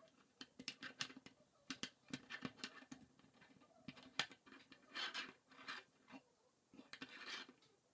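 Plastic K'NEX rods and connectors clicking and rattling as they are pressed and fitted together by hand: a quick run of light clicks, with a few brief scrapes of plastic sliding on plastic.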